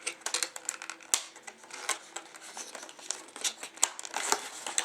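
Cardboard and plastic packaging rustling and scraping in the hands, with many small irregular clicks and crinkles, as the tight inner packaging is worked out of a hard-drive retail box.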